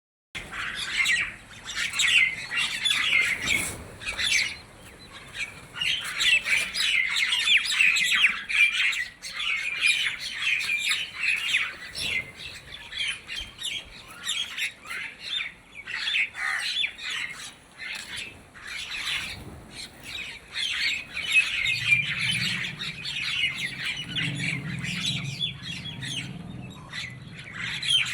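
A flock of birds squawking and chattering, with many quick overlapping calls and no break. A low hum joins in about three-quarters of the way through.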